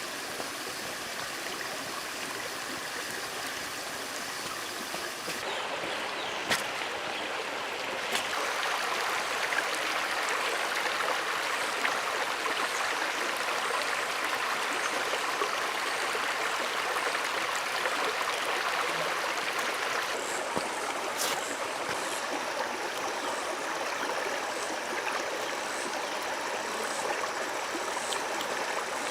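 Running water flowing steadily, with a few sharp clicks, one about six seconds in and another about twenty seconds in.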